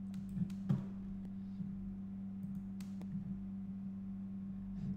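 A steady low electrical hum, with a few faint computer mouse clicks, two of them close together early and one near the middle.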